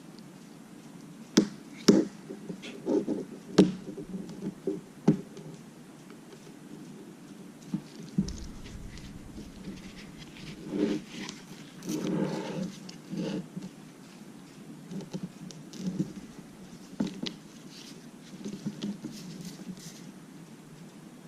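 Small hand tools and parts being handled on a workbench: scattered sharp clicks and taps, with short scraping and rustling around the middle.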